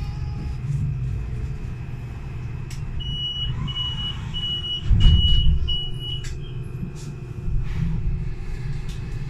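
Solaris Urbino 12 Hydrogen fuel-cell bus giving a steady low rumble. Midway there is a row of about five short, high beeps, and a heavy thump comes about five seconds in.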